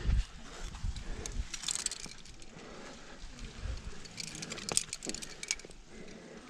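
Climbing gear, quickdraws and carabiners hanging from a harness, clinking and jangling in short bursts as the climber moves up the rock, about a second and a half in and again from about four to five and a half seconds. A few dull low thumps come in between.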